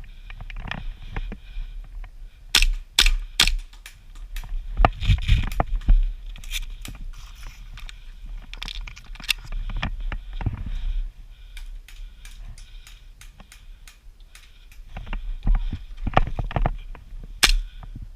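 Airsoft guns firing single sharp cracks, bunched in twos and threes a few seconds in, mid-way and near the end, over rustling and scraping of gear and movement close to the microphone.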